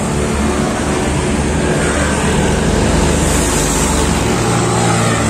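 Street traffic: a car and a motorcycle driving along the road, engines running, with a steady level throughout.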